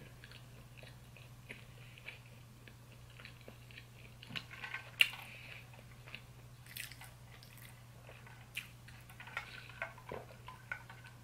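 Close-miked mouth sounds of chewing food, soft wet clicks and smacks, with one sharper click about five seconds in. Near the end, a sip of a drink through a straw.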